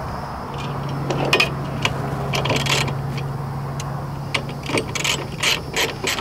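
Sharp metal clicks of bolt hardware being fitted through an aluminium solar panel frame and bracket, and near the end a socket ratchet starts clicking as the bolt is tightened. A steady low hum runs underneath for most of it and fades near the end.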